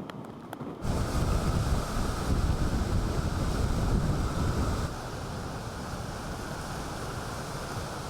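Ocean surf washing onto a beach with wind rumbling on the microphone. It comes in about a second in, with the wind strongest over the next few seconds, then settles into a steadier, quieter rush of surf.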